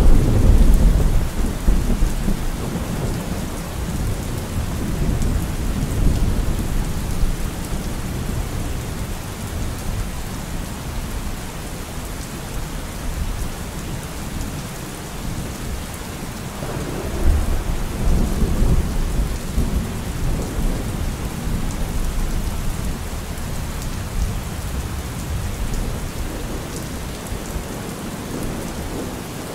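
Steady rain falling, with rolls of thunder: a low rumble swells right at the start and another about 17 seconds in, each fading over several seconds.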